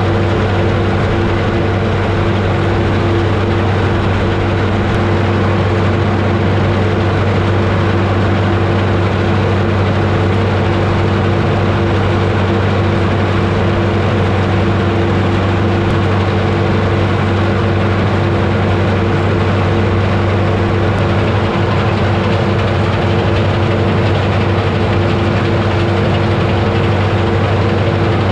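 Massey Ferguson 31 combine harvester running under load while cutting and threshing oats: a loud, steady drone of engine and threshing machinery with an unchanging low hum.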